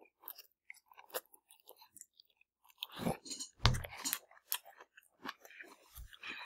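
Close-up chewing and small wet mouth clicks of people eating rice noodles, with a louder low thump a little over three and a half seconds in.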